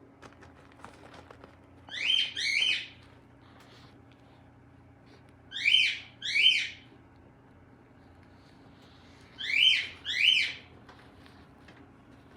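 Young cockatiel calling: three pairs of short rising whistled chirps, about four seconds apart.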